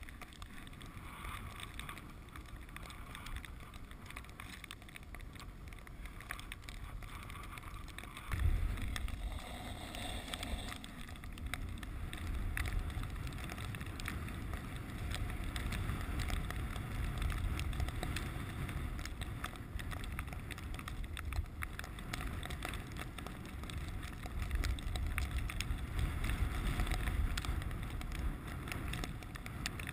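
Dog sled gliding over snow behind a team of Siberian huskies: the runners slide and scrape steadily, with scattered small clicks and knocks. A low rumble comes in suddenly about eight seconds in and stays.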